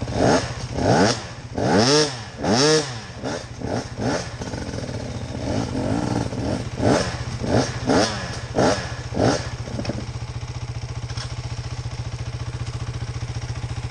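Off-road motorcycle engines idling, with a run of about a dozen quick throttle blips, each rev rising and falling, then settling to a steady idle for the last few seconds.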